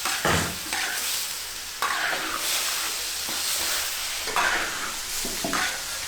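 Food stir-frying and sizzling in a hot wok, with a spatula scraping and tossing it in about half a dozen separate strokes.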